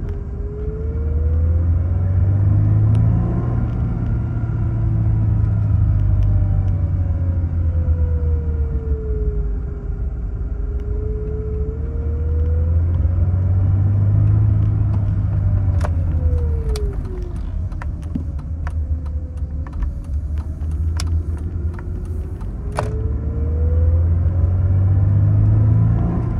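Holden Adventra's Alloytec V6, heard inside the cabin, pulling away and accelerating, its engine note rising and falling several times as the automatic shifts, with a cluster of sharp clicks in the middle. The owner is listening for a light, rapid slapping noise, like a cable tie slapped around, that comes between 2,000 and 3,000 rpm in the low gears and vanishes on the gear change. He suspects the flex plate to torque converter attachment.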